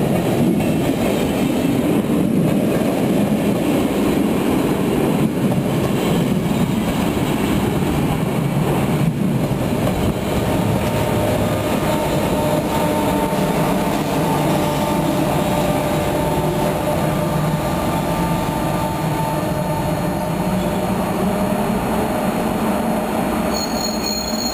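NS intercity coaches and their pushing 1700-class electric locomotive rolling past, braking as the train arrives: a steady heavy rumble of wheels on rail. A steady whine runs while the locomotive goes by, and high-pitched wheel squeal starts near the end.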